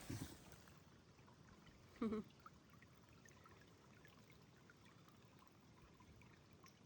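Faint trickling of a small stream, otherwise near silence, with one short voice-like sound about two seconds in.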